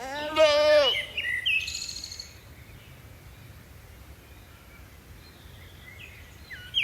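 A single wavering bleat at the start, about a second long, followed by birds chirping and calling in the background.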